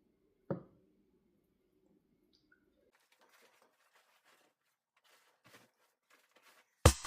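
One sharp thump about half a second in, over a faint low hum, followed by faint rustling and handling noises; music with a heavy drum beat comes in right at the end.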